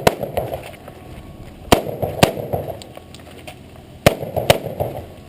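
Rifle shots fired in quick pairs, about half a second apart, with a pause of over a second between pairs; five shots, each followed by a rolling echo.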